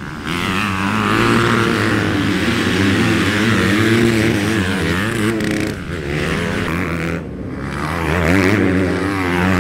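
Several motocross dirt bikes racing past with their engines revving hard, the pitch rising and falling repeatedly as the riders work the throttle.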